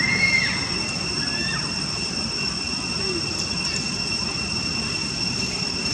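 Steady outdoor background noise: a constant rushing hiss under two steady high-pitched drones, with a few short chirping calls in the first second and a half.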